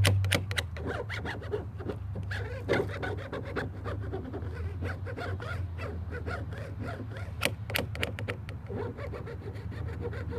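Irregular scraping and rubbing with scattered short clicks, as a vinyl decal is pressed and smoothed onto a truck door, over a steady low hum.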